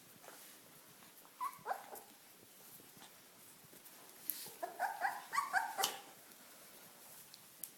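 Welsh Corgi puppy giving short, high-pitched yips: two about a second and a half in, then a quick run of several a few seconds later.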